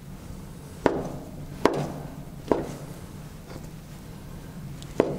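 A large cleaver-style knife chopping soft cooked dumplings and knocking down onto a wooden cutting board, giving four sharp knocks and a fainter one, spaced about a second apart, over a low steady hum.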